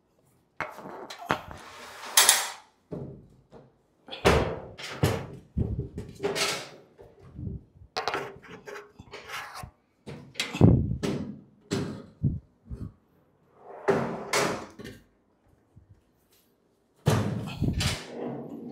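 A steel filing-cabinet drawer on its metal telescopic slides being handled and worked into the cabinet body: an irregular series of metal clunks, knocks and rattles, with a short pause near the end.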